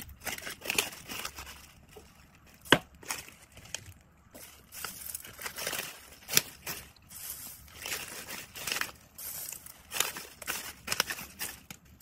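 Dried herbs crackling and rustling as they are handled and pushed with metal tongs into a small clear plastic cup, with irregular sharp clicks, the loudest about two and a half seconds in and again about six seconds in.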